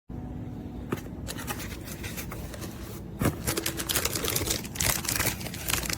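Hands handling objects at close range: scraping and scattered clicks, turning into a dense run of clicking and crinkling from about three seconds in.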